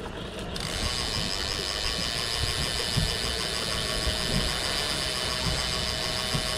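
Cannon Magnum electric downrigger lowering its weight ball: the motor and gears start about half a second in and then run with a steady whine and hiss.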